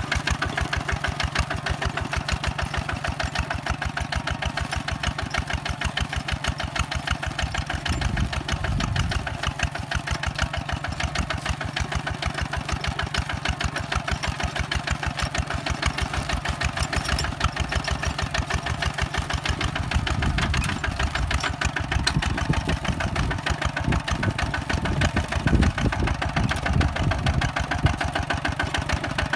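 Two-wheel walking tractor's single-cylinder diesel engine running steadily with a rapid, even chugging while it pulls a disc plough through the soil. A deeper rumble swells a few times, about a third of the way in and twice more towards the end.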